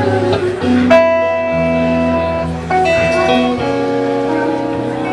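A live band playing a slow song: electric guitar over keyboard, bass and drums, with long held notes and a steady low bass line.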